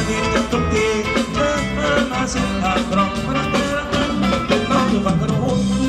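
Upbeat music with singing and a steady beat.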